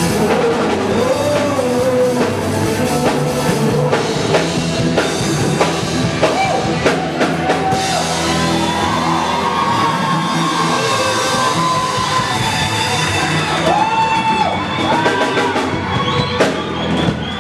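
A rock worship song: drum kit and guitar with a singer holding long notes that bend in pitch.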